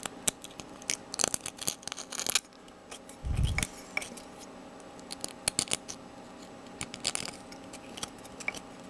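A small hand tool scraping and clicking against the inside of a 3D-printed plastic cup, trimming it smooth in quick, irregular strokes. A dull low thump comes about three and a half seconds in.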